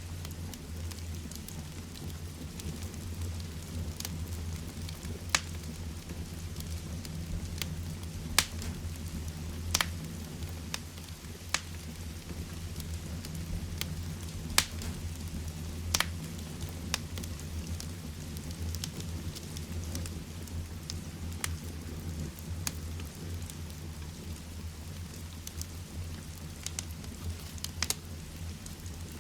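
Heavy rain falling steadily, with a wood fire in a fireplace crackling and giving sharp, irregular pops every second or few.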